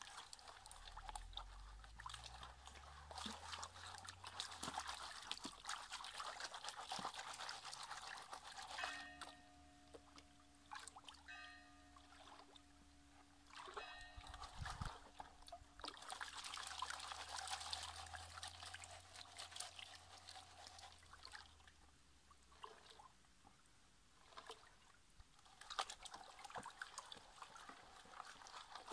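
Faint water sloshing and trickling in a plastic gold pan as it is swirled in shallow stream water to wash out sand and gravel. A faint steady hum comes in for a few seconds in the middle.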